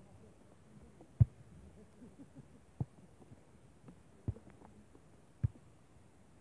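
Volleyball being struck back and forth in a beach volleyball rally: four dull thumps of hands and forearms hitting the ball, roughly a second and a half apart, the first the loudest.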